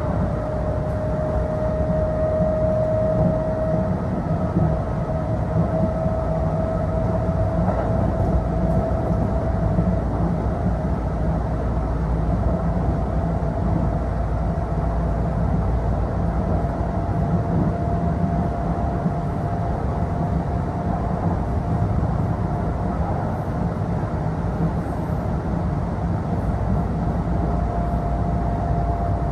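Kintetsu electric train running, heard from inside the passenger car: a steady low rumble with a motor whine that slowly rises in pitch as the train gathers speed.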